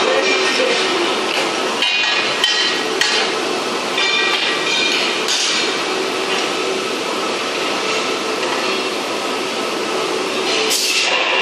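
CO2 gas-shielded wire-feed (MIG) welding arc crackling and sputtering steadily as steel brackets are welded.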